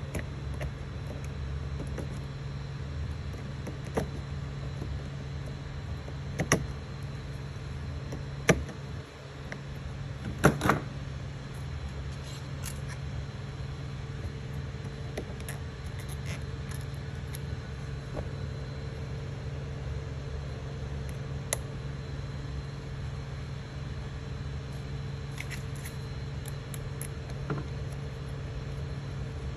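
Creality Ender 3 3D printer's fans humming steadily, with a handful of sharp clicks and taps as the extruder is handled, the loudest within the first eleven seconds.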